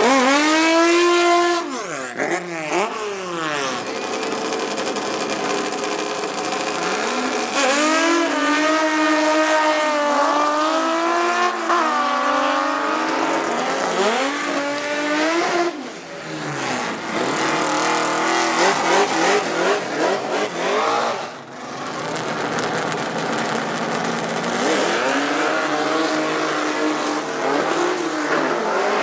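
Six- and eight-cylinder drag cars running at full throttle, one after another. Their engine pitch climbs, steps and drops again and again as they accelerate.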